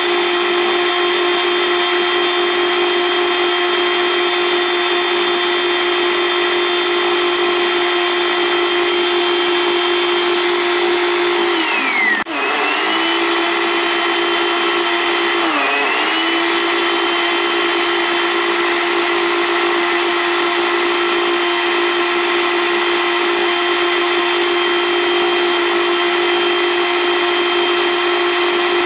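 Countertop blender motor running steadily at one pitch as it churns whipping cream on its way to butter. There is a brief break in the sound about twelve seconds in and a short dip in pitch a few seconds later.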